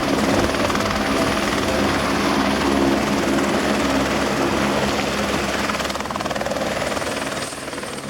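Helicopter running steadily, its rotor and engine making a constant loud drone that drops a little in level near the end.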